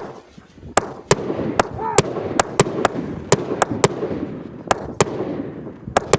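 A 'Protect Your Dream' 200-gram 1.4G consumer firework cake firing, with about a dozen sharp reports in quick, irregular succession starting about a second in, over a steady hiss.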